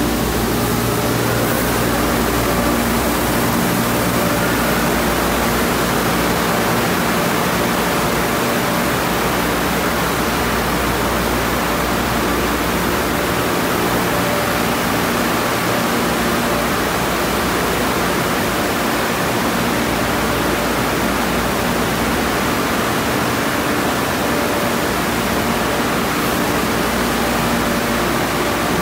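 Conveyor car wash tunnel in operation: a steady rush of water spraying over a car from the arches and rain bar, with an even machine hum underneath.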